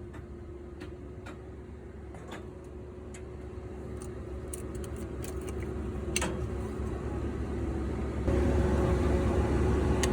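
Diesel truck engine running at a steady pitch, fitted with a newly replaced turbocharger. It grows gradually louder, then steps up abruptly about eight seconds in as a higher steady tone joins.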